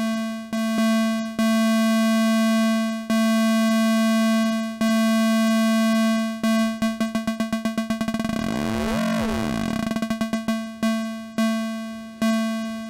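A steady low synth tone has its volume shaped by a Make Noise Maths envelope set to cycle and run through a VCA. It repeats in long swells. As the rise and fall are turned down it speeds up into a fast flutter about seven seconds in, with warbling side tones where the pulsing is fastest. It then slows back to separate decaying pulses.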